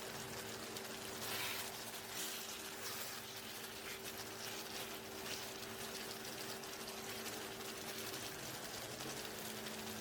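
Chicken curry simmering in a pot: a steady bubbling, crackling hiss, a little louder about a second and a half in, with a faint steady hum underneath.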